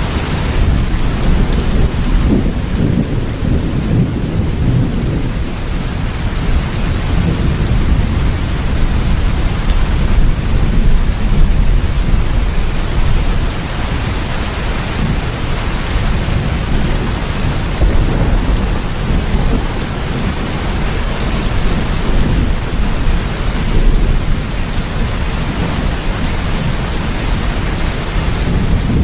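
Steady rain with a low, rolling rumble of thunder underneath, swelling a little around the middle and again near the end.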